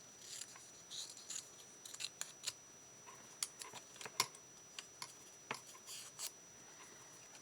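Scissors cutting cardstock in a run of short, irregular snips, with the paper rustling as it is turned.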